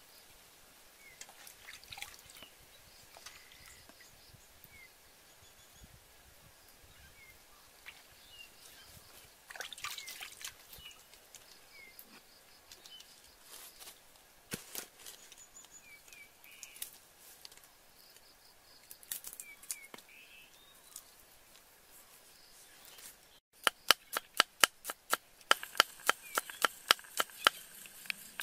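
Cleaver chopping garlic on a wooden chopping block: a fast run of sharp strikes, about four a second, starting about 23 seconds in. Before that, faint outdoor ambience with short high bird chirps and a few scattered knocks.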